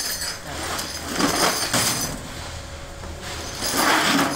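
Woven plastic sacks rustling and scraping as they are lifted and set down, in noisy bursts about a second in and again near the end.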